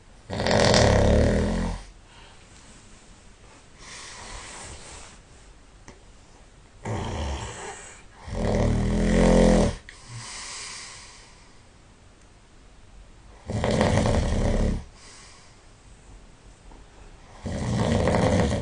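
A sleeping person snoring heavily: a loud snore roughly every four seconds, four in all, with softer breaths out between them.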